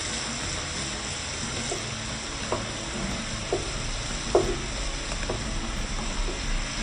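Shrimp and diced onion sizzling in oil in a frying pan, with a steady hiss, as a wooden spatula stirs them; a few short sharp clicks stand out, the loudest a little past the middle.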